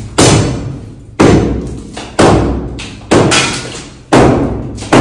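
Heavy hammer blows on masonry during demolition, five strikes about a second apart, each hit sharp and dying away with a ring in the room.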